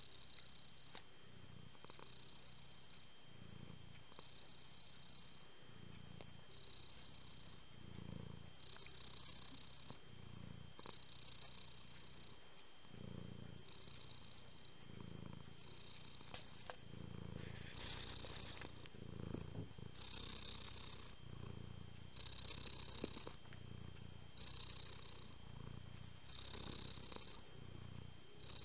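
Domestic cat purring, rising and falling in an even in-and-out rhythm of a little over a second per breath.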